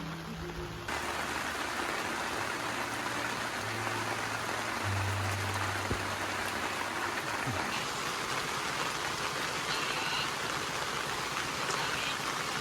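Steady rain falling, a dense even hiss that comes in abruptly about a second in and then holds steady.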